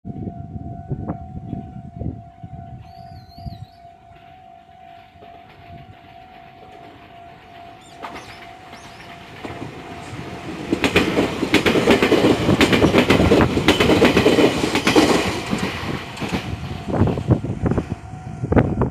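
Japanese level-crossing alarm ringing steadily while a Meitetsu 3150-series electric train, two sets coupled, approaches and passes over the crossing. The train builds up about eight seconds in and is loudest from about eleven to sixteen seconds in, with rapid clatter of wheels over the rail joints, and a few more wheel clicks come near the end.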